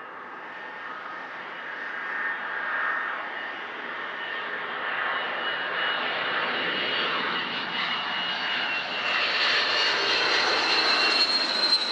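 Boeing 767-200's twin jet engines on landing approach, growing steadily louder as the airliner nears, with a steady high whine over the rushing engine noise.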